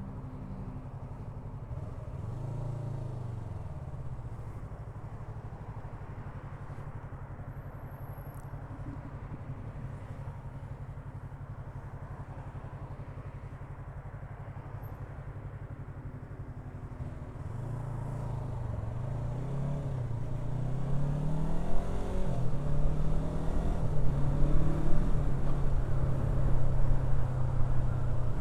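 Yamaha R3's parallel-twin engine on the move, rising and falling in pitch briefly about two seconds in, then running steadily. In the second half it accelerates through the gears, pitch climbing and dropping at each shift, while wind noise grows much louder with speed.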